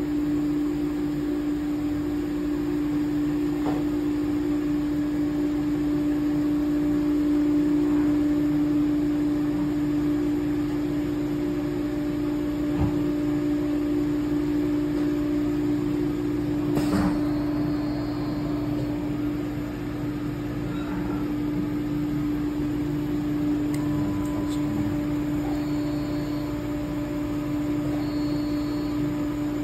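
Steady electric hum from an ANCA MX7 Linear CNC tool and cutter grinder standing powered up, with one sharp click about seventeen seconds in and a few faint short high beeps later on.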